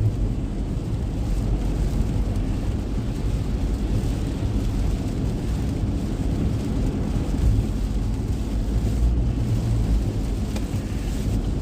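Car driving through a heavy downpour, heard from inside the cabin: a steady low rumble of tyres on the wet road, with the rain.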